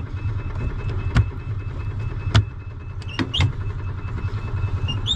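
Cold carbureted Kawasaki engine of a gas EZ-GO golf cart running at low, uneven revs with the choke out as the gas pedal is pumped; it is barely revving, struggling in the cold. Several sharp knocks come through it, and the reverse warning beeper pulses faintly.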